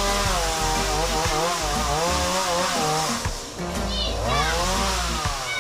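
Chainsaw running while cutting through tree limbs, its engine pitch repeatedly climbing as it is revved and sagging back as the chain bites into the wood.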